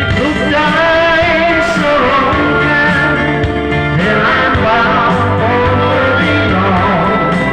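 A male voice singing a slow country-folk song over guitar accompaniment, holding long notes with vibrato.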